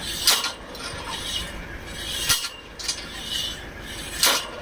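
Three sharp metallic clinks about two seconds apart, with scraping between them, at a borewell drilling rig working its drill pipe.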